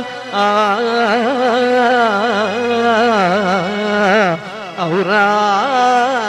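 A man singing a Telugu padyam into a microphone, drawing out a vowel in one long, ornamented melodic line whose pitch slides and wavers, over a held low accompaniment note. The line dips in loudness briefly about four and a half seconds in.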